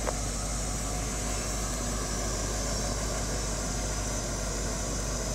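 1976 Lincoln Continental Mark IV's 460 V8 idling steadily, with one small click just after the start.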